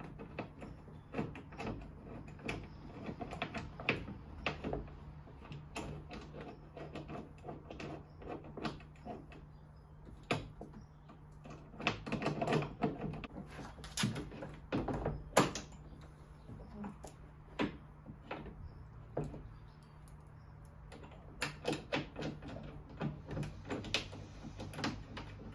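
Scattered knocks, clicks and light clatter as an Aixam Crossline's tailgate is held in its opening and fitted back onto its hinges, with the busiest handling midway and again near the end. A low steady hum runs underneath.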